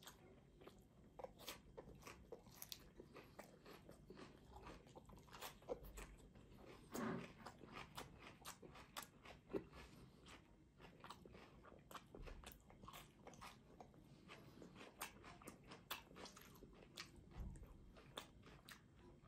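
Faint, close-up crisp crackles and rustles of fresh herbs and sliced green peppers being handled and laid on soft flatbread, many short sharp snaps in an irregular run, with one louder, duller sound about seven seconds in.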